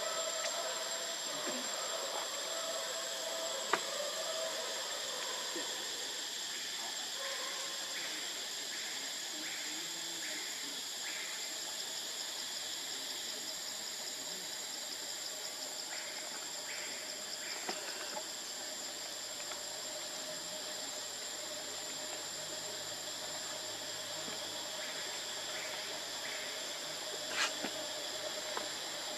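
Steady forest insect chorus: a continuous high-pitched buzz over a hiss, with faint short chirps or squeaks now and then and a couple of sharp clicks.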